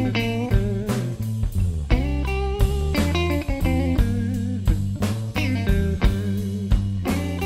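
Live band playing an instrumental blues-rock passage: electric guitar lines over bass notes, with a steady drum beat of about two hits a second.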